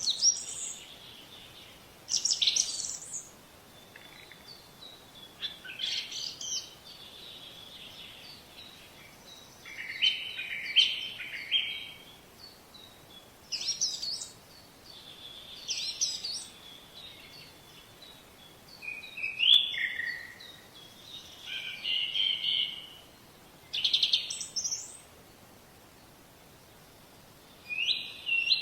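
Birds chirping and singing: short, varied calls and quick warbling phrases, coming every second or two with brief pauses between.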